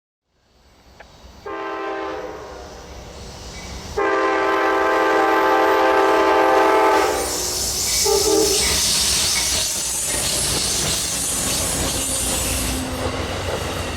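A freight locomotive's Nathan K5LA five-chime horn sounds a short blast, then a louder blast of about three seconds, with a brief note just after. The train then passes close by in a loud rush of wheel and rail noise with some clickety-clack.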